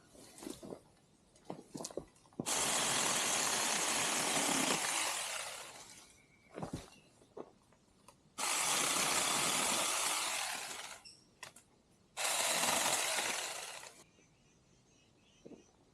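Small battery-powered chainsaw (Saker 6-inch mini saw) run in three bursts, each starting suddenly and fading away, with clicks and knocks of handling between.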